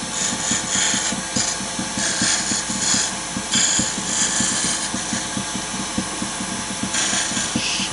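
Wood lathe running with a turning tool taking light cuts on the spinning wooden spindle to shape a bead. Several short bursts of scraping hiss from the cut come and go over the lathe's steady running sound.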